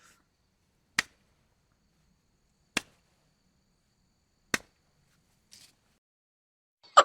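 Three sharp single cracks, evenly spaced about a second and three-quarters apart, with near silence between them.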